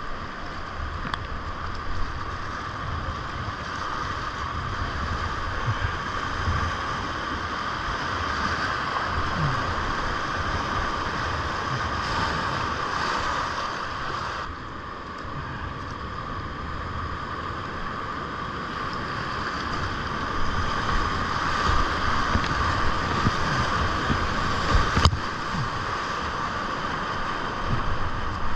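Rushing whitewater of a creek running high (about 1,600 cfs), heard from a kayak in the rapids: a steady loud rush of waves with uneven low buffeting on the microphone. A single sharp knock sounds near the end.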